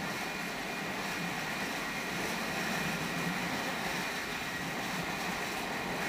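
Freight train cars rolling past a grade crossing: a steady rumble of wheels on rail with a thin, steady high ring over it.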